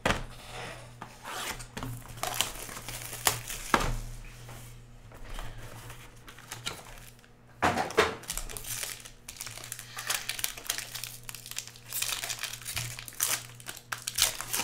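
Trading card pack wrappers crinkling and tearing as packs are opened and cards handled, in an irregular run of crackles with a few sharper snaps.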